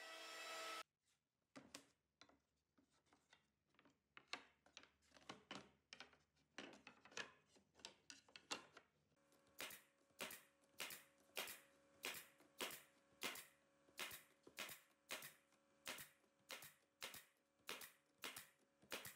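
Pneumatic brad nailer driving nails into wooden boards: sharp snapping shots, irregular at first, then a steady run of about two a second through the second half. A steady hum cuts off just under a second in.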